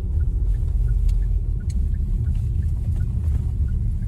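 A car driving, heard from inside the cabin: a steady low rumble.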